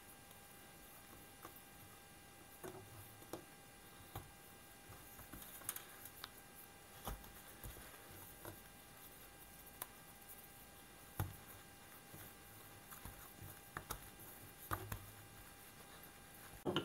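Faint, scattered soft taps and handling noises of hands working soft dough on a marble countertop, pinching it off and shaping it into balls, over a faint steady hum.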